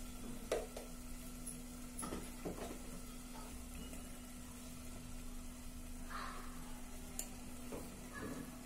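Mashed vegetable bhaji sizzling faintly as it cooks in a pan, with a few light clinks of a spoon against the pan as spice powders are tipped in.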